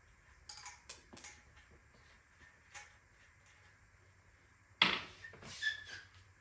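Light clicks and clinks of bicycle parts and tools being handled, then a louder clank about five seconds in, followed by a few more knocks with a brief ring.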